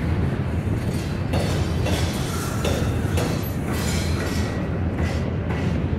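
Norfolk Southern double-stack intermodal train rolling past: a steady low rumble of steel wheels on the rails, with scattered metallic clanks from the well cars.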